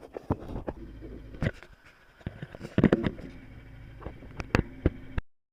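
Irregular knocks and clatter over a faint low steady hum, the loudest knocks about three and four and a half seconds in; everything cuts off abruptly about five seconds in.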